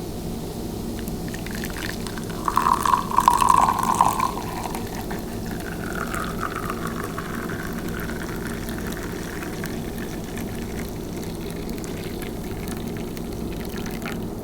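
Blended coffee being poured into a cup: a louder gush of liquid about two seconds in, then a thinner stream that carries on more quietly. A steady low hum runs underneath.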